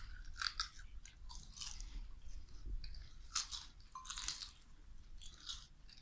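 Potato chips crunching as they are bitten and chewed, in irregular crisp crackles.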